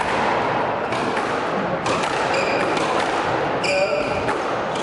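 Squash rally: the ball thudding off racquets and the court walls, with a couple of sharp hits that ring briefly, and players' footsteps on the wooden floor, all echoing in the court.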